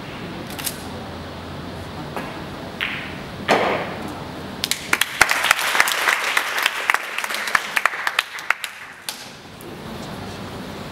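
Scattered applause from a small audience, about four seconds of claps that start a little past the midpoint and die away. A single brief, loud sound comes just before the clapping begins.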